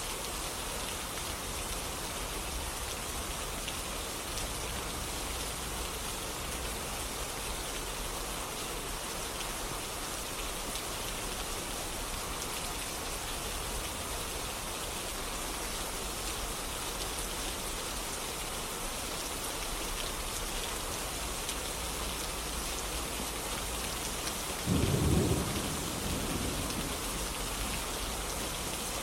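Steady rain falling, with one sudden low clap of thunder near the end that is loudest for about a second, then fades.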